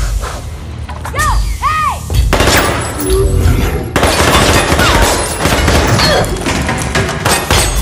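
Two quick whistled notes, each rising and falling, about a second in. From about two seconds in, sustained rapid automatic rifle fire follows with heavy impacts, over film score music.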